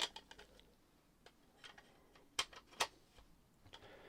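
Faint, scattered clicks and taps of small plastic parts being handled and fitted on a portable radio cassette player's casing, with two sharper clicks a little under half a second apart about two and a half seconds in.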